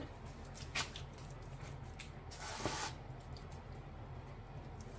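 Quiet sounds of seasoning a mustard-coated pork butt roast: dry rub shaken from a plastic shaker bottle and rubbed into the meat by hand. There is a soft click about a second in and a short hissing shake near the middle.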